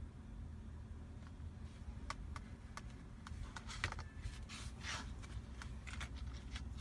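Handling noise: a run of light clicks and taps as a small glass tumbler is moved and set down on a laminated card. About halfway through comes a rustle as a cloth is rubbed over a strip of mink false eyelashes. A low steady hum runs underneath.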